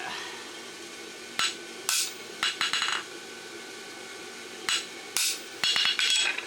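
Hand hammer striking a tool on a steel horseshoe over the anvil, marking the nail holes: irregular sharp metallic blows, a couple at first, a short run of taps in the middle, and a quick flurry of ringing taps near the end.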